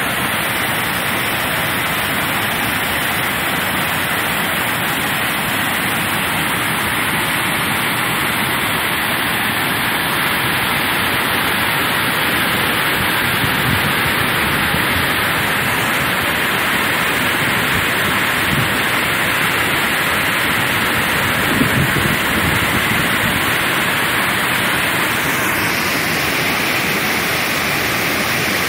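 Heavy monsoon rain with rushing water, a loud, steady rushing noise without a break.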